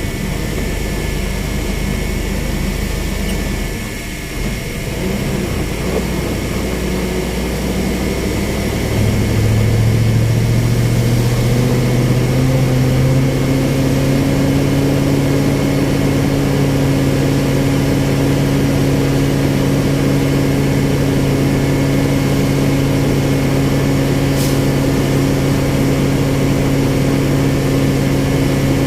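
Engine running steadily, then speeding up about ten seconds in and holding at higher revs, with a thin high whine over it.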